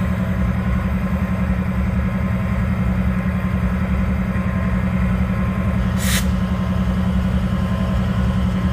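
Diesel locomotive engine idling with a steady, pulsing drone. About six seconds in there is a short hiss of air.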